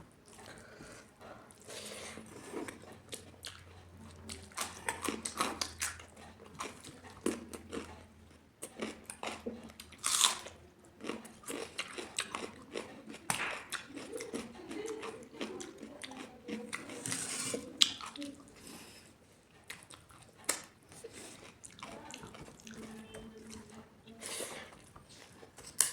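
Close-up eating sounds: a person chewing and biting, with irregular crunches and a few louder crisp bites scattered through.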